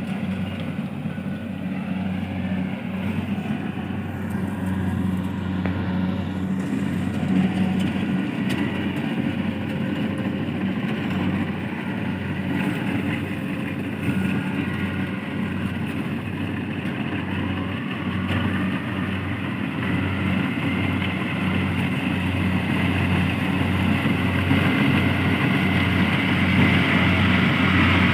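Engine running steadily with a low hum and a slow, regular throb, growing a little louder near the end.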